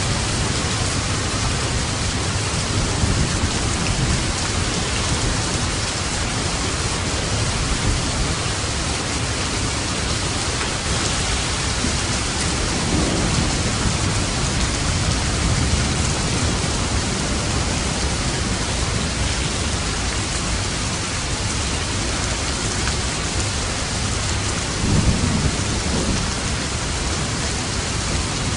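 Steady heavy rain with light thunder: low rumbles swell now and then beneath the rain, the clearest one about 25 seconds in.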